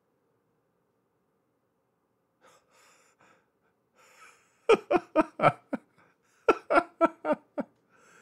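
A man laughing: two quick runs of short, breathy 'ha' pulses, about four to five a second, starting a little over four seconds in, with faint breaths just before.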